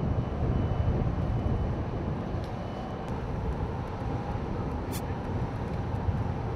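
Steady low outdoor rumble beside a large ship at the pier, the mix of ship machinery and wind, with a couple of brief clicks, the sharpest about five seconds in.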